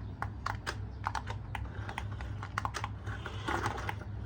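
Rapid, irregular light clicks and taps, like small hard objects being handled, over a low steady hum.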